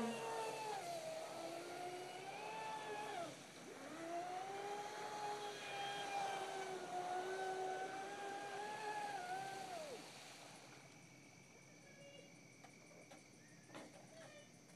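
Spartan RC speedboat's brushless electric motor whining at speed over the hiss of water off the hull. The whine sags and fades about three and a half seconds in, comes back and holds steady, then cuts out about ten seconds in.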